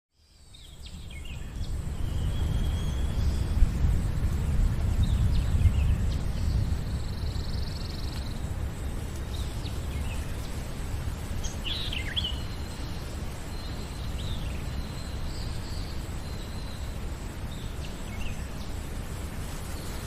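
Rain falling on a mountain lake under a deep rumble that swells over the first few seconds and then eases to a steady level. Birds chirp now and then.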